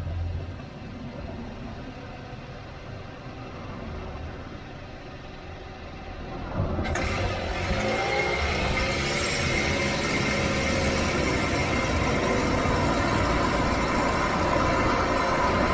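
Nissan Serena C25 minivan running: a quieter engine rumble for about the first seven seconds, then a sudden step up to steady, louder engine and road noise as it drives.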